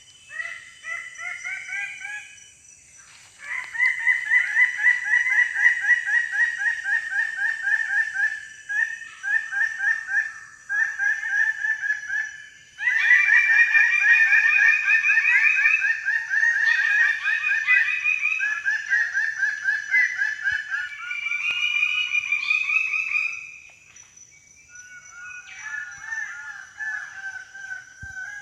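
Birds-of-paradise calling in chorus: rapid runs of loud repeated notes from several birds overlapping. The chorus swells a few seconds in and dies back to scattered calls near the end.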